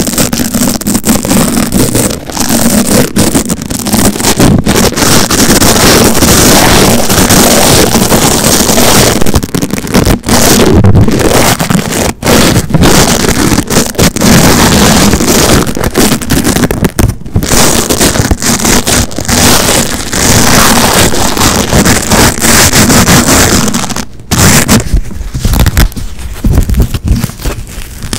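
Hook-and-loop (Velcro) straps ripped apart right at the microphone: a loud, scratchy tearing that goes on almost without a break, pausing briefly a few times.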